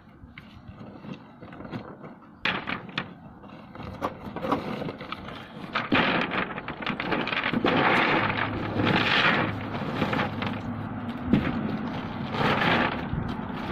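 A cardboard box of stones being handled and its flaps torn open, with rustling and crackling cardboard and scattered knocks. It grows louder and denser about six seconds in.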